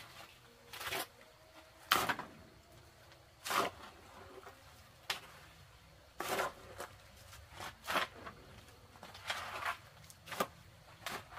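Hoe blade chopping and scraping through a pile of gritty sand and cement mix, in short irregular strokes roughly once a second.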